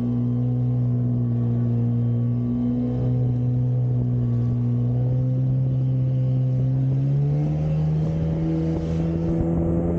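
Jet ski engine running at speed, a steady drone over the hiss of water spray; about seven seconds in its pitch steps up as the revs rise.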